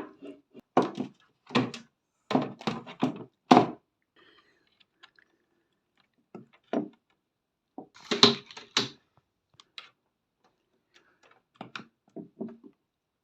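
A string of irregular knocks, taps and clicks from handling hard laptop parts and tools on a work surface. The knocks come in small bunches, with a louder pair about eight seconds in.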